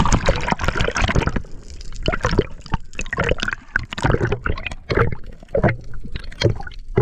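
Water splashing and gurgling in irregular bursts around swimmers who have just gone in.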